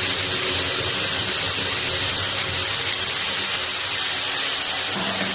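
Wet onion-tomato gravy sizzling in hot mustard oil in a steel kadhai, a steady loud hiss as the masala starts to fry, with the slotted spoon stirring it.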